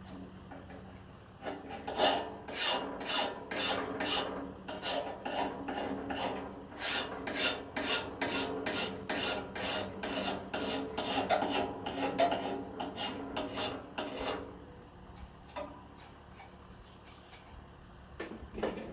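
Hand metal file rasping across the steel blade of a pair of loppers in quick, even back-and-forth strokes, about two a second, sharpening the edge. The filing stops about three-quarters of the way through, leaving a few faint clicks.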